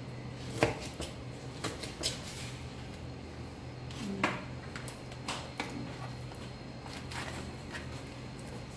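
Kitchen knife slicing green bell pepper on a wooden cutting board: sharp, irregular knocks of the blade on the board, the loudest under a second in, over a low steady hum.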